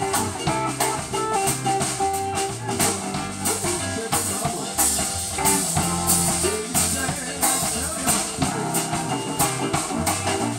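Live blues band playing a song: electric guitars, bass guitar, drum kit and electric keyboard together, with steady drum and cymbal hits.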